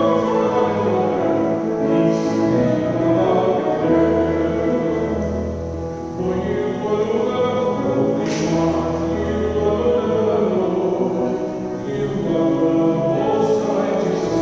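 Church choir singing sacred music with accompaniment, the notes held and changing slowly, with low bass notes sustained underneath in the middle.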